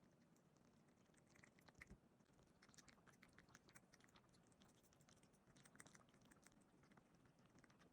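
Bengal cat chewing raw food, faint wet clicks and crunches of its teeth coming in quick runs, with the loudest bites about two seconds in and again near six seconds.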